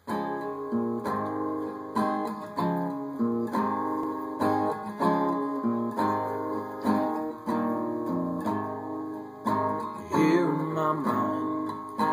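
Acoustic guitar strummed in a slow, steady rhythm, one or two chord strokes a second, each ringing out before the next: the instrumental intro to a song.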